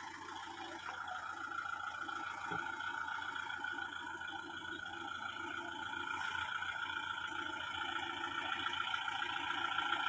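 Tractor diesel engine running steadily under load as the tractor drives over a heap of chopped corn silage to compact it, growing gradually louder as it comes closer.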